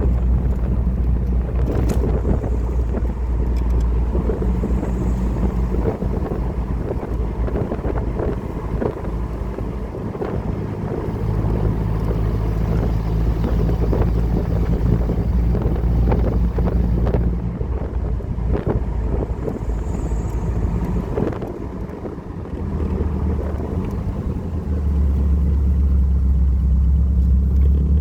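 Air-cooled VW flat-four engine running under way, its low steady note shifting in pitch a few times as the driver changes speed, with wind buffeting the microphone. It eases off briefly about three-quarters of the way in, then comes back louder.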